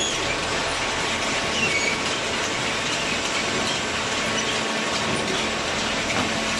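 Vertical hydraulic baler running: a steady, loud mechanical noise with a faint hum and short high squeaks scattered through it.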